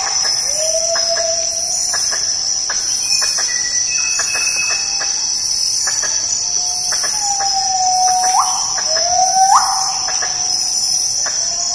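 Mentawai gibbon calling: long whistled notes, each sliding slowly up and then sweeping sharply upward at its end, repeated with a pause in the middle. Behind them is a steady high drone of forest insects with a pulsing buzz above it.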